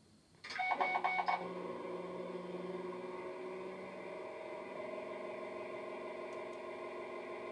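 Model locomotive DCC sound decoder playing a Class 68 sound file through the model's EM2 speaker: a quick run of six or seven short beeps about half a second in, then a steady diesel engine idle.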